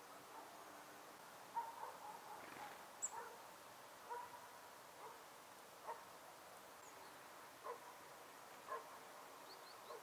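Faint, short animal calls repeated about once a second, each a brief pitched note, with a couple of thin, high chirps in between.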